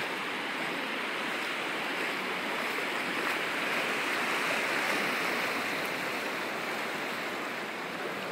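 Floodwater rushing and sloshing steadily, a continuous wash that swells a little in the middle and eases again.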